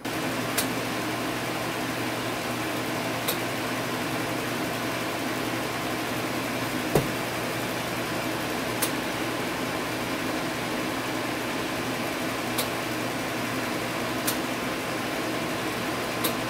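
Steady cooling-fan noise from a tube linear amplifier, with a low mains hum underneath and a few faint scattered ticks.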